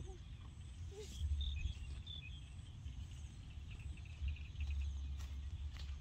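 Outdoor ambience in scrubland: a low wind rumble on the microphone, with a few short, high chirps starting about a second in.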